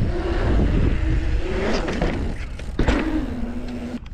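Wind rushing over an action camera's microphone and mountain bike tyres rolling while riding, with a couple of sharp knocks from the bike about halfway through and again nearer the end.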